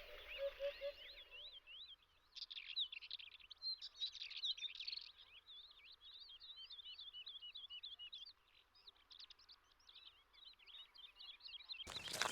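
Wild birds singing: a fast, continuous run of high chirping notes, with three low hooting notes near the start. Just before the end a louder rustling, crunching noise begins.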